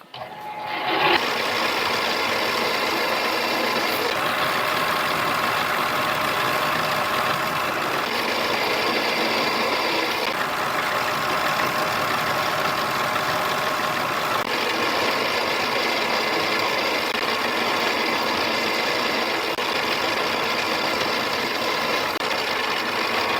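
Mini lathe spinning up and running steadily, its motor and gears whining, while turning down a 6061 aluminum workpiece. The tone shifts slightly a few times as the cut goes on.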